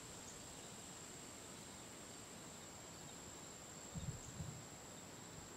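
Faint, steady high-pitched trill of insects in the field, one unbroken tone. A couple of soft low thumps about four seconds in.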